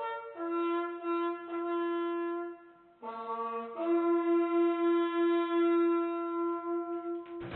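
A solo bugle call on a brass instrument: a slow line of long held notes, a brief pause, then one long sustained note that breaks off near the end.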